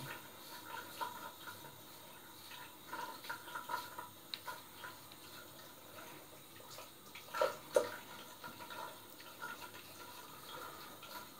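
Three-blade razor scraping faintly through long hair on a gelled scalp in short strokes. About seven and a half seconds in come two quick louder splashes as the razor is swished in a sink of water to clear hair from its clogging blades.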